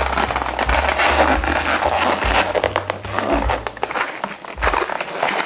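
Inflated latex modelling balloons being handled, stretched and twisted in the hands: a continuous rubbery crackling and rubbing with many small sharp clicks.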